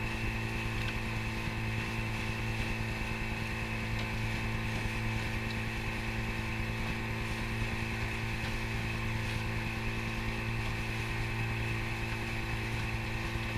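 Tomos 10 two-stroke outboard motor running steadily at cruising speed, its drone holding one pitch throughout, with water rushing and hissing along the hull and in the wake.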